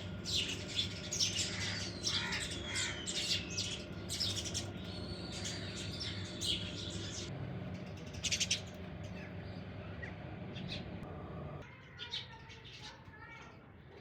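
Birds chirping and squawking: many quick high calls, some with gliding notes, over a steady low hum. The hum drops out and the calls thin and quieten near the end.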